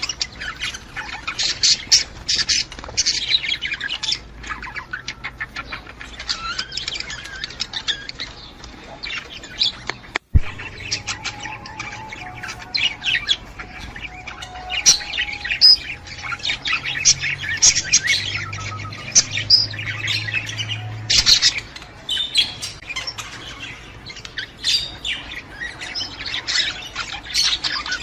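Budgerigars chattering in quick chirps, squawks and warbles, the kind of budgie chatter played to get a female budgie in the mood to breed. The sound cuts out for an instant with a click about ten seconds in.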